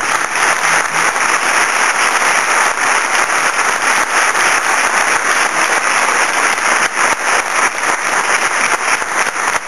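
Audience applause: dense, steady clapping from many hands that starts suddenly.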